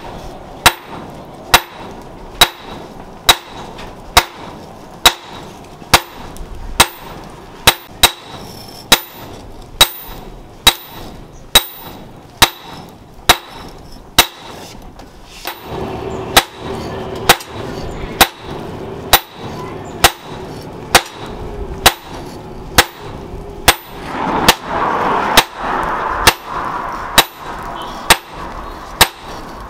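Hand hammer striking a red-hot leaf-spring steel cleaver blank on a small steel post anvil. The blows come in a steady, even rhythm, each a sharp metallic strike with a short ring.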